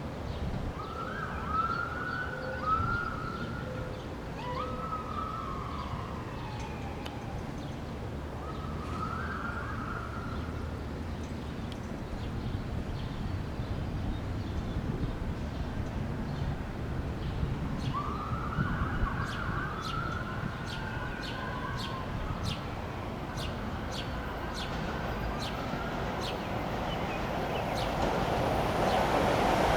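A distant siren sounding off and on in short rising-and-falling sweeps over a steady low rumble. Near the end an approaching train grows louder.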